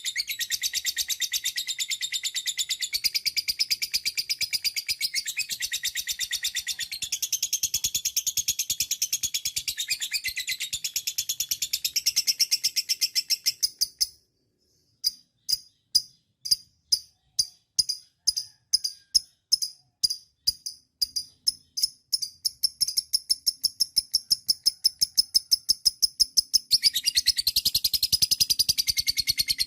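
Lovebird giving its long 'ngekek' chatter: a fast, shrill, unbroken string of rapid notes. About halfway through it breaks off for a moment, then restarts with spaced notes that speed up into the rapid trill again.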